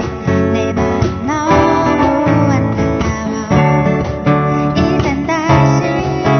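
Amateur band playing a song live, led by strummed acoustic guitars.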